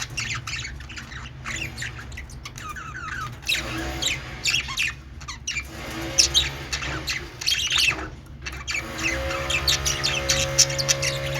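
Budgerigars chirping and chattering in quick, overlapping squawks and warbles, with a steady low hum underneath.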